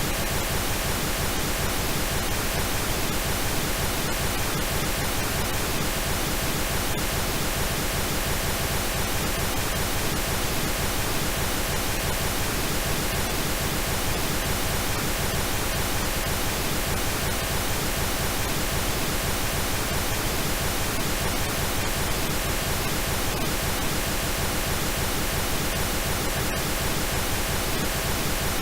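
Steady pink noise: an even, unbroken hiss spread across all pitches, with faint steady tones woven in.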